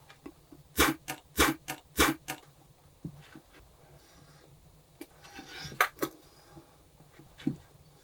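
Close-up mukbang eating sounds: a quick run of sharp, loud crunches about a second in, then scattered smaller crunches and a brief rustle around the middle.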